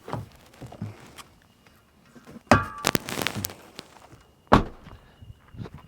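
Footsteps, then a clatter and rustling as things are taken out of a car, and a single loud thunk of a car door shutting about four and a half seconds in.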